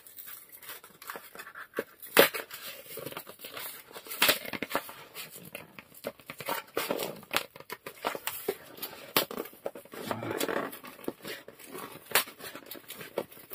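Fingers and fingernails picking and scratching at plastic packing tape on a cardboard box, with scattered sharp ticks and short crackles as the tape edge is worked loose.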